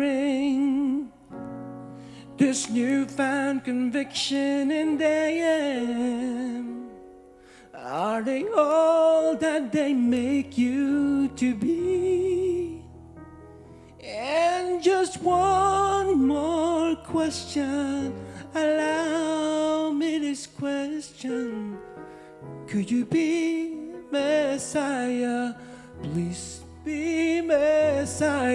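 Worship music: a solo voice sings long, wavering notes with vibrato over held piano chords, in phrases broken by short pauses.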